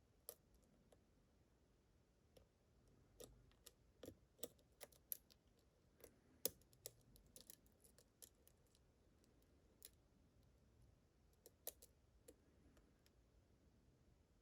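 Faint, irregular clicks and ticks of a lock pick and tension wrench working in the keyway of a pin-tumbler challenge lock, with the loudest click about six and a half seconds in.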